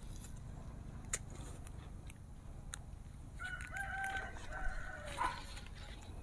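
A rooster crowing once, a held call of about two seconds starting a little past the middle. A single sharp click comes about a second in.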